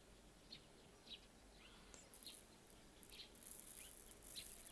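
Faint outdoor ambience with scattered short bird chirps. In the second half comes a soft, high hiss of mung beans trickling from a hand.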